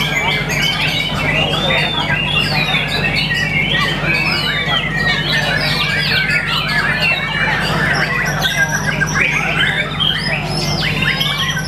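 White-rumped shama (murai batu) singing a fast, unbroken, varied song of whistled notes that rise and fall in pitch, over a steady low hum.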